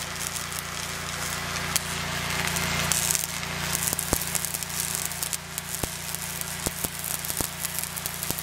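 Stick welding: the electrode's arc crackling and sizzling steadily over a low hum, with a few sharp pops in the second half.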